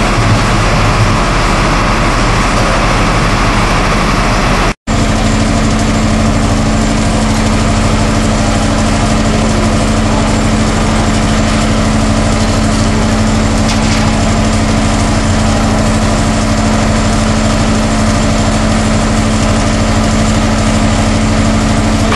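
A loud, steady engine-like drone that runs on without change, broken by an instant of silence about five seconds in, after which a steady low hum sits under it.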